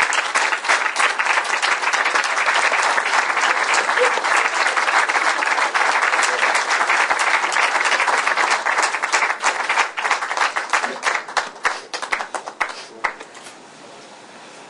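Audience applauding: a dense, steady clapping for about ten seconds that thins to a few scattered claps and dies away near the end.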